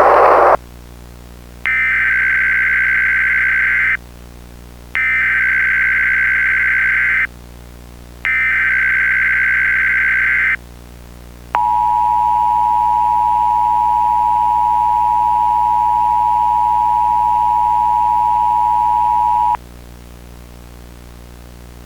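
Emergency Alert System header and attention signal. Three digital data bursts of about two seconds each, a second apart, are followed by the two-tone alert: a steady dual tone held for about eight seconds that cuts off suddenly.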